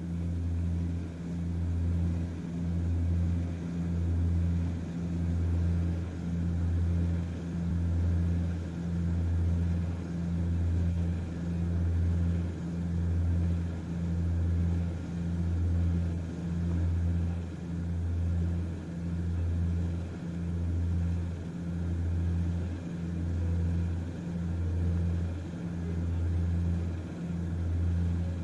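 Cabin drone of a four-engine turboprop airliner, an Ilyushin Il-18, in cruise. It is a steady low hum that swells and fades evenly, a little slower than once a second.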